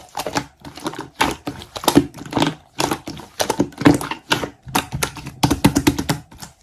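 Slime being squeezed and pressed by hand, making a dense, irregular run of sharp clicks, pops and crackles.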